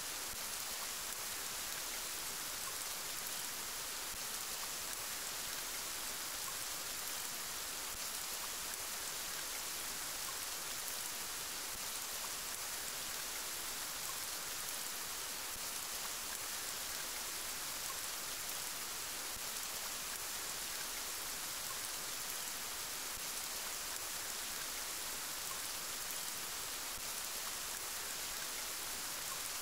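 Steady rain falling, an even high hiss of many fine drops that holds unchanged.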